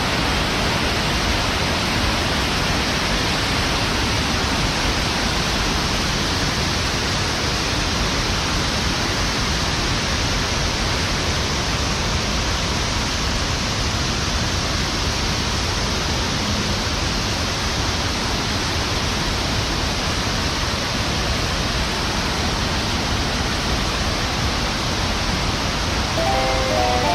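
Steady, even rush of water falling at Kuang Si waterfall, unchanging throughout. A few plucked music notes come in near the end.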